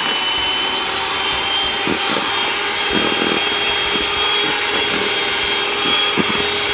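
Electric hand mixer running steadily, its beaters whisking two raw eggs in a plastic bowl: an even motor whine with soft, irregular knocks underneath.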